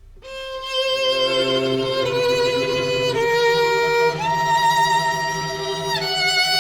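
Music: a violin plays a slow melody of long held notes over low sustained strings, swelling in at the start.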